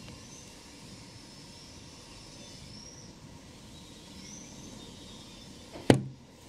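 Faint outdoor background noise with a few short, high chirps, then a single sharp knock about six seconds in.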